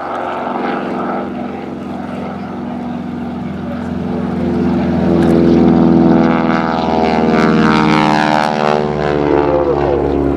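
North American T-6 Texan's Pratt & Whitney R-1340 Wasp radial engine and propeller at full takeoff power as the trainer takes off and passes by. It grows louder over the first half, then drops in pitch as it goes past.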